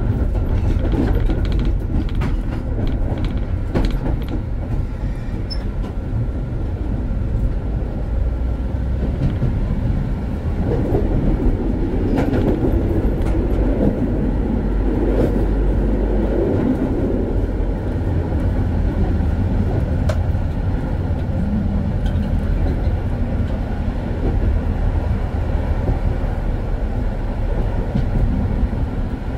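Konstal 105Na tram running along the track, heard from the driver's cab: a steady rumble of wheels on rails with a few sharp clicks in the first several seconds, and a louder, rougher stretch about a third of the way through.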